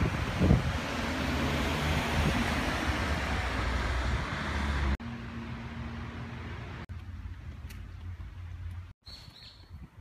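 Road traffic noise on a mountain road: a steady rush of a passing car's tyres, with low wind thumps on the microphone near the start, cut off suddenly about halfway. Then a much quieter wooded roadside with a few faint ticks and a short high chirp near the end.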